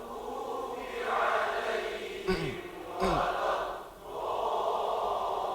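Many voices reciting Qur'anic Arabic together in unison, a blended chant-like sound rather than one clear voice, with a few short falling voice sounds a little past two seconds and again at three.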